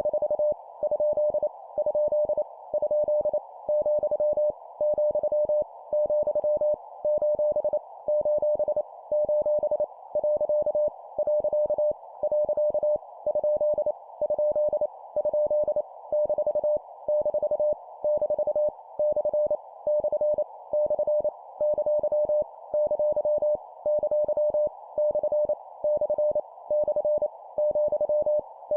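Morse code sent at 25 words per minute: a single steady mid-pitched tone keyed on and off in rapid dots and dashes, spelling out random punctuation characters for copying practice. A faint hiss runs underneath the tone.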